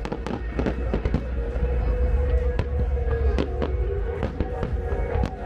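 Fireworks going off, a quick irregular string of sharp bangs and crackles, over music playing through loudspeakers.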